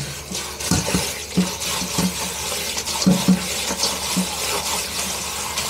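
Kitchen tap running steadily into a steel bowl of purslane in a stainless sink, with hands swishing and rinsing the leaves in the water.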